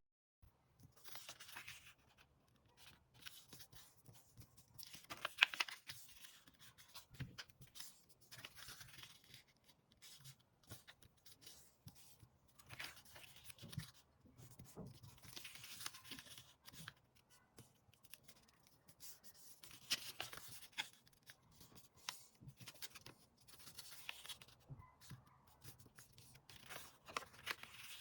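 Sheet of paper being folded by hand: faint, intermittent rustling and scraping as it is handled, with sharp creasing clicks, the loudest a little past five seconds and again around twenty seconds.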